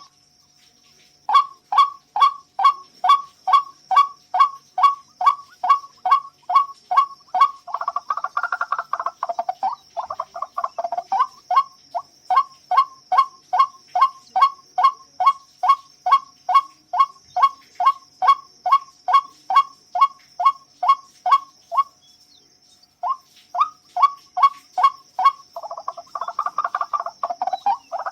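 White-breasted waterhen (ruak-ruak) calling: a long run of evenly repeated croaking notes, about three a second, broken by two short pauses. In two stretches the notes thicken into denser overlapping gurgling calls. A steady faint high hiss runs beneath.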